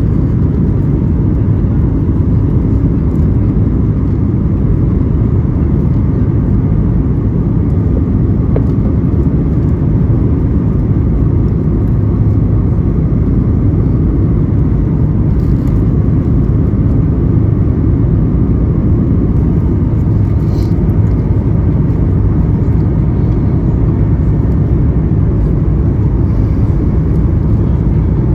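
Steady low rumble and rush of engine and airflow noise inside the economy cabin of a Boeing 737-900ER with CFM56-7B turbofans.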